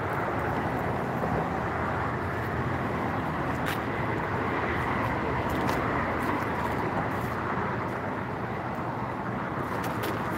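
Steady rush of road traffic from the adjacent highway bridge, an even, unbroken noise with no single vehicle standing out, and a few faint clicks over it.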